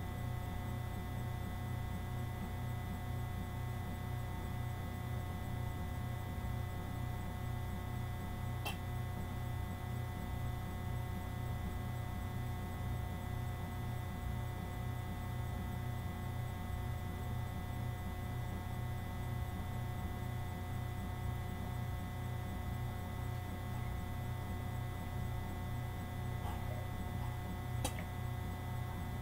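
Steady electrical mains hum in the recording, with two faint clicks, one about nine seconds in and one near the end.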